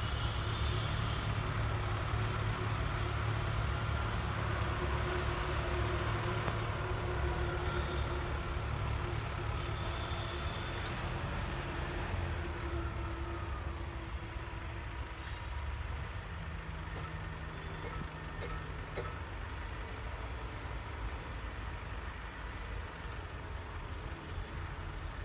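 Mahindra tractor's diesel engine running steadily under load as it pulls a potato planter through the soil. It grows gradually quieter through the second half as the tractor moves away.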